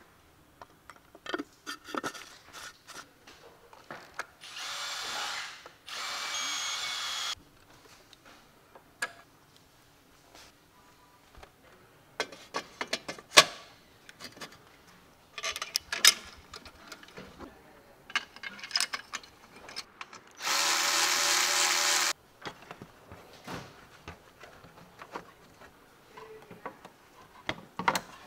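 Cordless power tool whirring in three short runs, the last the loudest and highest-pitched. Between the runs come scattered clicks and clunks of engine-bay parts and plastic covers being handled.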